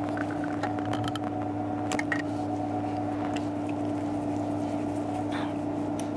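Scattered light metallic clicks and clinks of head-stud nuts and a socket on an extension being run down hand tight onto the studs of an engine cylinder head, over a steady hum.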